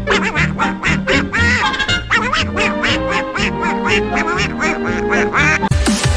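Music with a steady bass beat under a rapid string of short, pitched, squawky calls, about four a second. Just before the end it cuts to a denser electronic track with a heavy bass.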